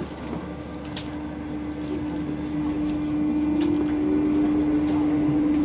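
MF77 metro train pulling out of a station and picking up speed: a steady, single-pitched electric whine grows louder over the running noise of the car, with a few light clicks.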